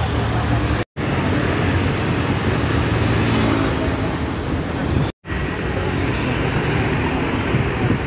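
Roadside traffic noise: buses, cars and motor scooters passing, with steady engine hum and tyre noise. The sound drops out completely for an instant twice, about a second in and about five seconds in.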